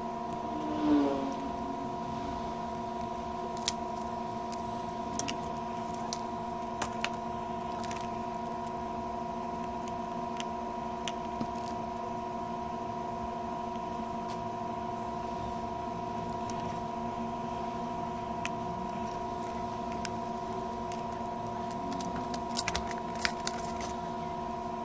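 A steady hum made of several held tones, with scattered small clicks and taps throughout and a brief falling sound about a second in.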